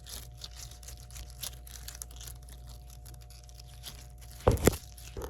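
A water wiggler squishy toy being squeezed and worked in the hands close to the microphone: a steady run of small sticky, crackly squishing noises. Two loud knocks come about four and a half seconds in.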